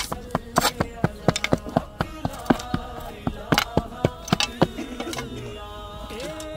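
Metal spades striking and tossing loose soil onto a grave mound: many sharp, irregular knocks, two to four a second. A voice sings a slow melody underneath, its long drawn-out notes coming to the fore about five seconds in, as the knocks stop.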